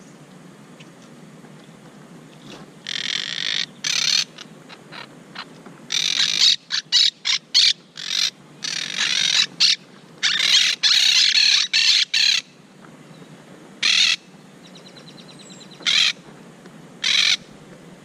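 Monk parakeets squawking: harsh scolding calls in quick runs from about three seconds in to about twelve, then a few single calls near the end.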